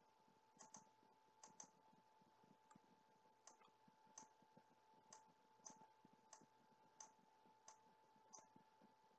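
Faint computer mouse clicks, about one or two a second, as grid cells are clicked one by one.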